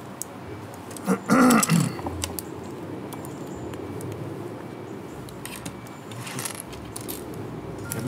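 Small plastic building bricks clicking and rattling as several people sort and press them together at a table, with a short burst of voice about a second in.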